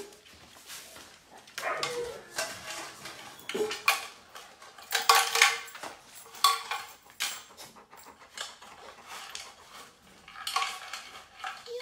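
Dishes and utensils clattering in irregular bursts of sharp knocks, with quieter gaps between.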